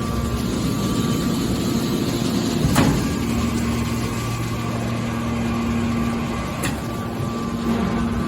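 Hydraulic scrap metal baler running: a steady pump-motor hum, with a sharp metallic clank about three seconds in and a lighter one near the end.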